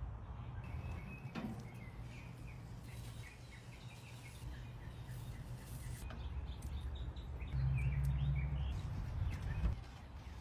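Outdoor ambience: a steady low rumble with birds chirping. A louder low hum swells about three-quarters of the way through, and a single sharp knock comes near the end.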